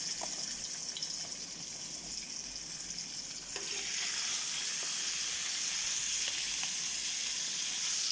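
Meat sizzling in hot oil in a pan as it browns, a steady hiss that grows louder about three and a half seconds in.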